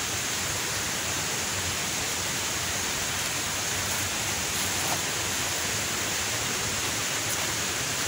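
Steady rush of water from a waterfall, an even hiss with no breaks.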